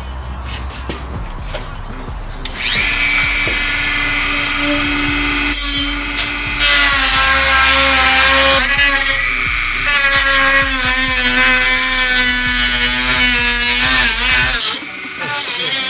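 Dremel rotary tool with a cut-off wheel cutting into a plastic valance: a loud high whine that starts a couple of seconds in, its pitch wavering as the wheel bites the plastic, and it breaks off briefly twice.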